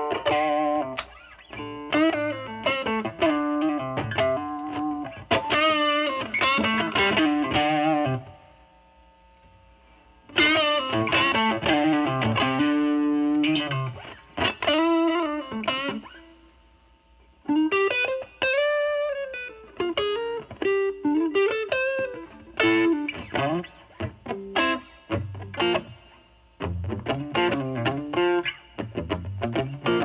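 Overdriven Stratocaster electric guitar playing blues lead phrases with string bends and vibrato, through a DOD FX102 Mystic Blues Overdrive pedal with its drive at about 1–2 o'clock, stacked into a Marshall Valvestate amp's overdrive channel. The playing pauses twice, leaving notes to ring and fade.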